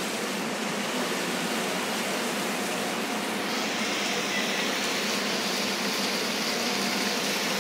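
Floodwater pouring down in a steady waterfall, an even rushing sound that grows a little brighter about halfway through.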